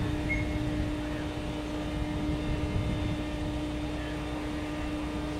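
Fire engine's diesel engine running steadily: a constant hum over a low rumble.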